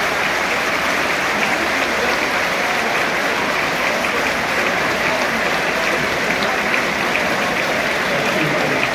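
Football stadium crowd applauding: dense, steady clapping.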